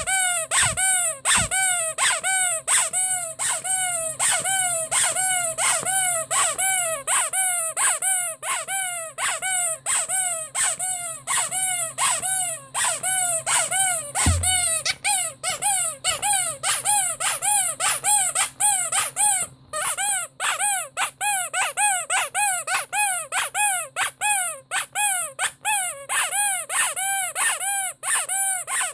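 Ledraplastic rubber Pinocchio squeaky toy being squeezed over and over, about two to three squeaks a second, each squeak rising and falling in pitch. There is a soft bump about halfway through and a brief break a little later.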